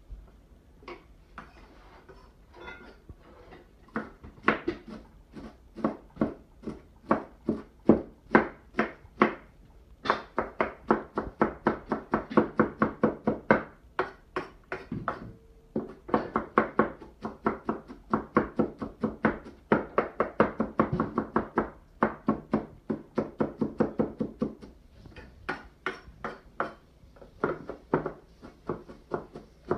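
Knife chopping cabbage in a steady run of quick chops, about three to four a second, faint at first and louder from a few seconds in.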